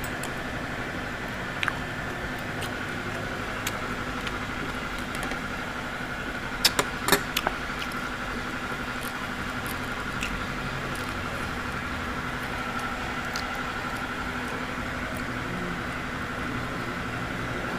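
A steady background hum with a faint high steady tone, broken by a few sharp clicks, the loudest a quick cluster about seven seconds in.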